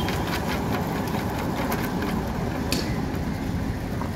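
Concrete road-paving screed running, its row of vibrator motors and engine making a steady mechanical hum with a fast rattle. A single sharp click about two-thirds of the way through.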